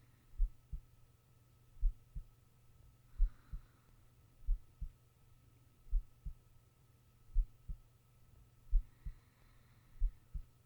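A sleeping person's heartbeat picked up close on a microphone: slow, even lub-dub double thumps, about one pair every 1.4 seconds, eight in all, over a steady low hum. Faint breaths come about three seconds in and again near the end.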